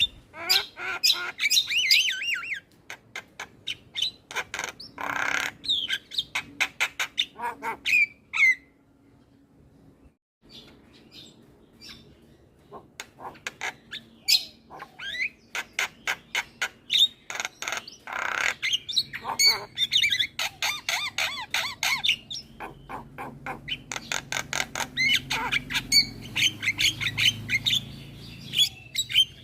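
Javan myna chattering almost without a break: rapid harsh clicks and squawks mixed with warbling whistled phrases, with a pause of about two seconds near the middle.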